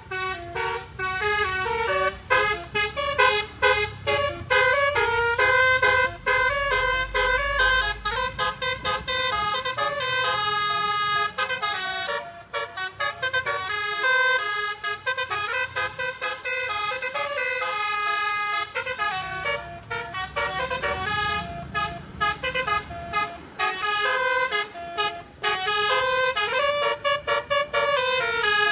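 Tour bus telolet horn, a set of air horns playing a tune of quick stepped notes, with a few short breaks. A low engine rumble sits underneath at times.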